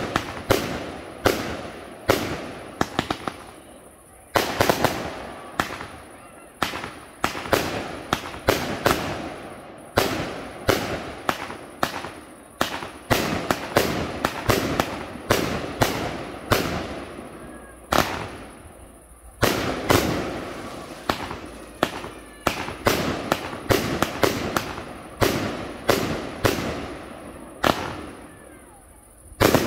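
Fireworks display: aerial shells launching and bursting in a rapid, uneven series of sharp bangs, about one or two a second, each trailing off in echo. There are short lulls about four seconds in and just before the middle.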